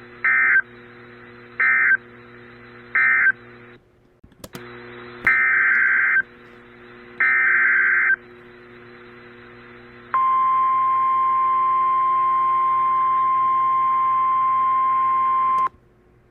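Emergency Alert System tones: three short warbling data bursts (the end-of-message code), then two longer bursts of the SAME header for the next alert, then the steady single-pitch attention tone of a National Weather Service alert, held for about five seconds before cutting off. A faint low hum runs under the bursts.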